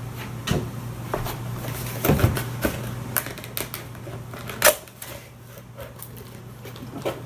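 Cardboard keyboard box being handled and opened: a string of clicks, scrapes and rustles as the flaps and lid are worked, with one sharper knock about two-thirds of the way through, over a steady low hum.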